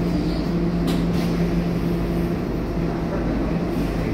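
Scania K230UB city bus's five-cylinder diesel idling while stopped at a traffic light, heard from inside the cabin as a steady low hum. A couple of faint clicks come about a second in.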